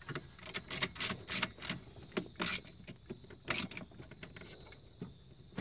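Small, irregular clicks and rattles of a screwdriver and plastic fuse-block parts being handled while a screw is fitted to join two fuse blocks.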